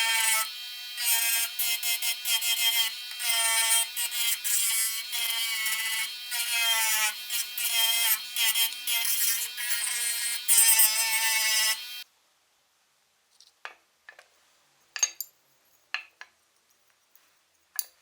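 A power tool runs with a steady whine and a loud hiss that starts and stops in quick irregular bursts, then cuts off suddenly about twelve seconds in. A few faint clicks and taps follow.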